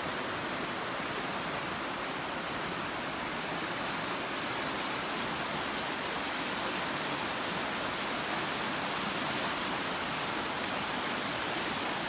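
Wide river rushing steadily through shallow, rocky white-water rapids.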